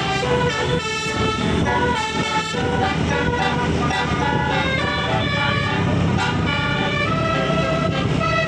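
Bus telolet horn, a Basuri multi-tone air horn with roof-mounted trumpets, playing a tune of held notes that change pitch every fraction of a second, over the low hum of the bus engine.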